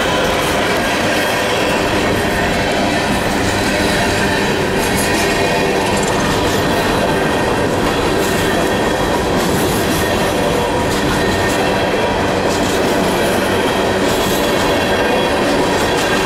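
A freight train of empty steel coal cars rolling past close by: a loud, steady rumble and rattle of steel wheels on the rails, with a high metallic ringing from the wheels running through it.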